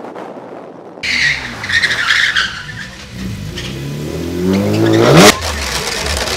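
Drift car tyres squealing as a BMW 3 Series (E46) slides sideways, with the engine held high. The engine then revs up steeply to a loud peak about five seconds in, and the sound cuts off abruptly. A steadier engine drone follows.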